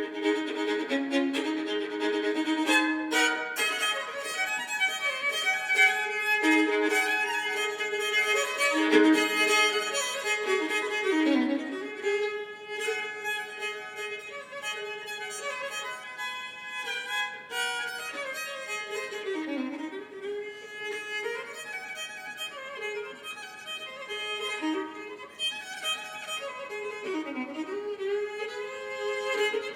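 Solo fiddle in sawmill tuning, bowed with ringing drone strings under the melody; the phrases repeat with short downward slides, and the playing turns softer about twelve seconds in.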